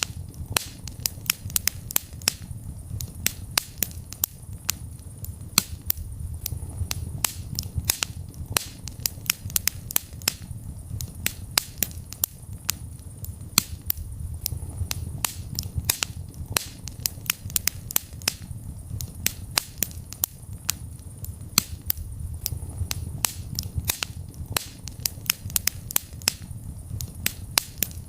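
Wood fire crackling in a fireplace: a steady run of irregular sharp snaps and pops, several a second, over a low rumble of burning.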